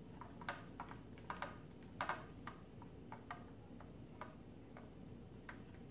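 Faint, irregular clicks and ticks of small plastic parts as a plastic motor housing is worked onto a tiny quadcopter motor by hand, thickest in the first couple of seconds, over a steady low hum.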